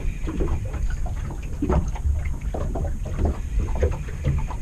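Wind rumbling on the microphone, with small waves lapping and slapping irregularly against the boat's hull.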